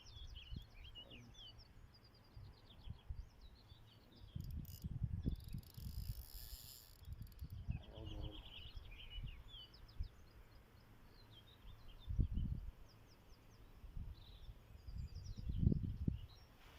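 Small birds singing, with short high chirps and trills throughout, over irregular low rumbling buffets that are loudest about twelve seconds in and near the end; a brief hiss comes about five seconds in.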